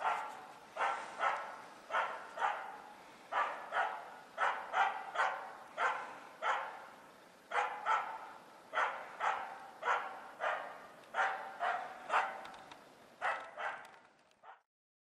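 A spitz-type bird dog bay-barking in a steady rhythm of short, sharp barks, about two a second and often in pairs, which stop abruptly near the end. This is the bay bark (ståndskall) that holds a treed capercaillie and tells the hunter where it sits.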